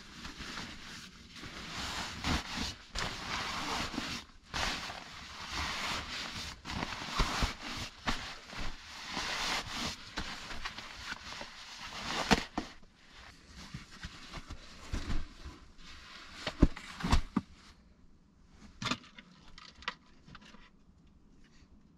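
Synthetic fabric of a sleeping bag and backpack rustling and swishing as they are handled and packed. After about twelve seconds the rustling gives way to scattered knocks and clicks that thin out toward the end.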